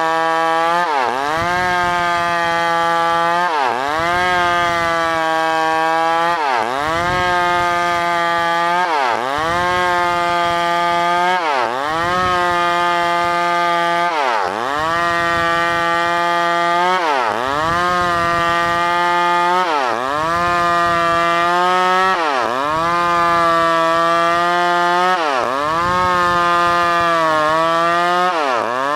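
New West PRO 888 two-stroke chainsaw running at high revs while sawing wood. Its engine pitch dips sharply and climbs back about every two and a half seconds.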